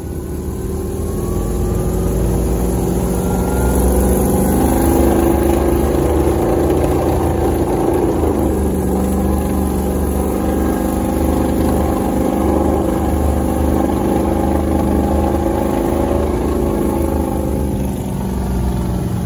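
Full-track swamp buggy's 540 Merlin big-block V8 running hard under load. It revs up over the first few seconds and then holds a steady high pitch with small dips, as the tracks churn through shallow marsh water.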